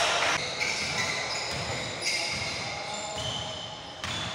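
Basketball dribbled on a hardwood gym court, a run of dull bounces with high-pitched sneaker squeaks over them, echoing in the large hall.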